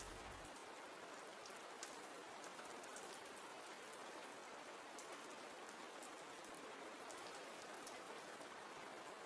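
Faint, steady rain: an even hiss with light, scattered drop ticks.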